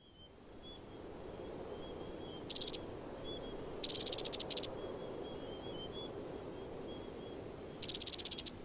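Insects chirping: short high chirps repeating about twice a second over a low ambient hum that fades in at the start. Three louder bursts of fast pulsing insect trills break in, the longest about four seconds in.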